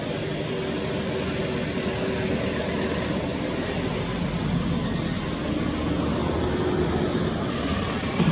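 A steady rushing noise, with no clear calls or knocks.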